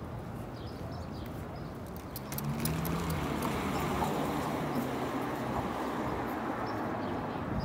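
City road traffic: a car passes about two seconds in and the tyre and engine noise stays up after it. Faint footsteps on the pavement in the first two seconds.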